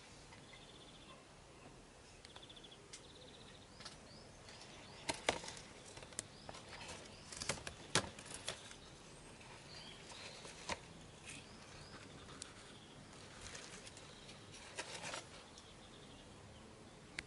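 Rustling and sharp clicks of pitcher-plant leaves and pots being brushed and handled, in two clusters: one about a third of the way in and a shorter one near the end, over a faint steady hiss.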